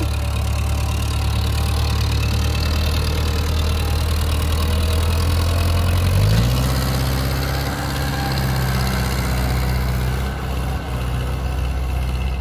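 Tractor diesel engine working hard under load, hauling a trolley up a sandy slope. About six seconds in, its note steps up to a higher, faster pitch and holds there.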